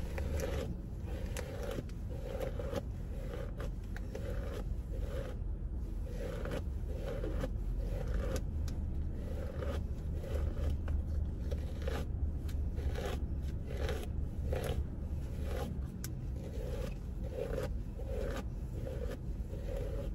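A paddle brush dragged again and again through thick, dry, kinky natural hair to detangle it: a rhythmic scratchy brushing, stroke after stroke, over a low steady hum.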